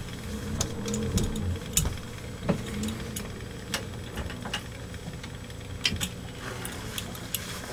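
Detroit Diesel 12V71 marine diesel idling, a steady low drone, with scattered sharp clicks and knocks from hands working at the engine.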